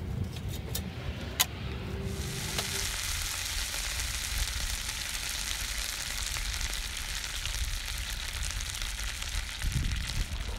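Melted PLA plastic bubbling and sizzling in a hot cast-iron skillet, a steady frying hiss with fine crackle that sets in about two seconds in. A few sharp clicks come before it.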